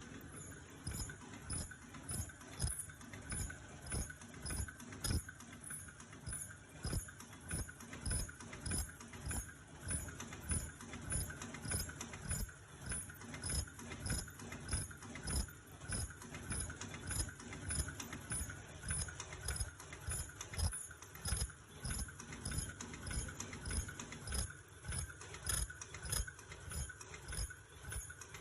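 High-speed KF94/FFP2 face mask making and welding machine running, its mechanism clunking in a steady rhythm of about three beats every two seconds over a constant hum.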